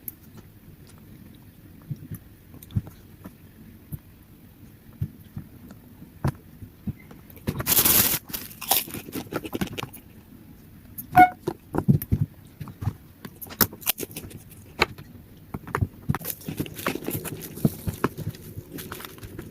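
A person eating a meal of rice, fish and krupuk crackers: chewing with scattered small clicks, knocks and scrapes, a louder noisy burst about eight seconds in and a cluster of sharper knocks a few seconds later.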